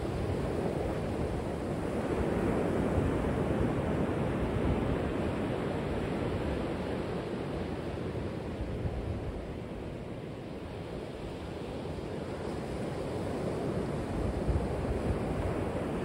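Ocean surf: waves breaking and washing in over a rocky shore, a steady rush that swells about two seconds in, eases off around the middle and builds again near the end.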